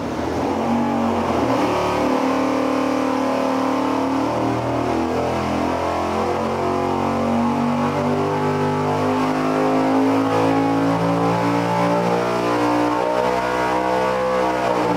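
A 478 cubic inch big-block Chevy V8 with 12.25:1 compression running at full throttle through a dyno pull on an engine dynamometer, its revs climbing toward 7,500 RPM. It is running Autolite 3924 spark plugs with the gap opened up to 65 thousandths.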